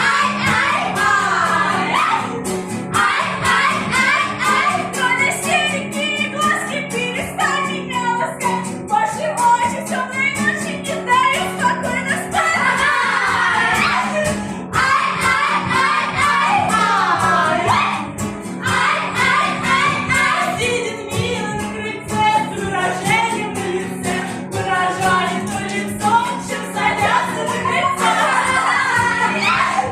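Chastushki, short Russian folk ditties, sung in phrases with brief breaks between verses, over a steady low held note.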